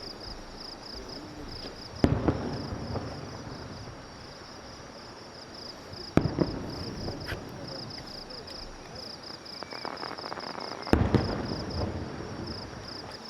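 Aerial firework shells bursting with three loud booms about four seconds apart, each trailing off in an echoing rumble, with some crackling after the last. Insects chirp in a steady, fast pulsing rhythm throughout.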